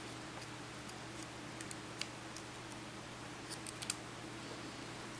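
Light scattered clicks and ticks of a plastic pry tool against a thin metal shield plate as the plate is levered up off the iPad Air 2's connectors, with a quick cluster of clicks about three and a half seconds in, over a steady low hum.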